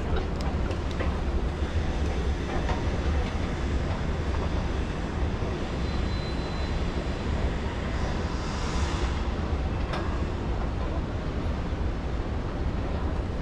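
Steady low rumble of city noise, with a short hiss standing out about eight to nine seconds in.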